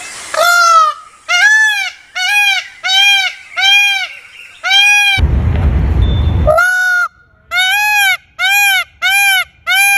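Indian peafowl (peacock) calling a loud series of short, honking cries, about one and a half a second, each rising then falling in pitch. A low rumble breaks in briefly about five seconds in, then the calls resume.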